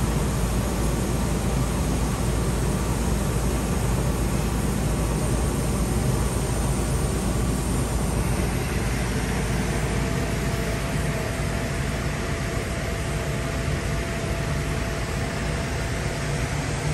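Steady drone of factory machinery running, a low rumble with a hiss over it, and a faint steady whine joining about two-thirds of the way in.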